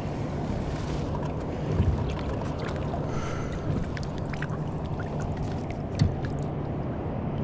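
Water lapping and sloshing against a fishing kayak's hull over a steady low rumble, with small clicks and a few knocks on the hull, the sharpest one about six seconds in.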